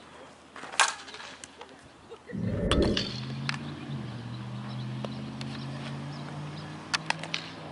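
A softball bat striking a tossed ball with a sharp crack about a second in. Later a low rumble gives way to a steady low hum, with a few light clicks near the end.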